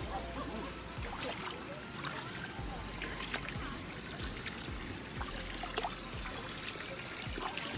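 Flowing water trickling and splashing steadily, with scattered small clicks and splashes.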